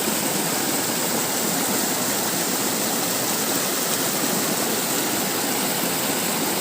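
Small waterfall on a hill stream: water rushing and splashing in a steady, even hiss.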